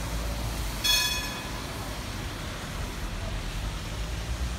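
Munich R2.2 low-floor tram rolling slowly into the stop with a steady low rumble. About a second in there is a brief, high ringing sound that fades quickly.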